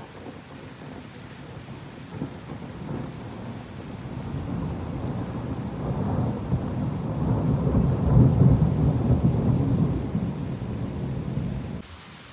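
Rolling thunder rumbling over steady rain. The rumble builds from about two seconds in to its loudest around eight seconds, then cuts off abruptly near the end, leaving only the rain hiss.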